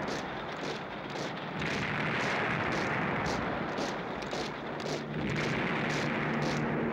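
Electronic soundtrack effect of a dense rumbling roar with a regular ticking beat about three times a second. A low steady hum comes in about five seconds in.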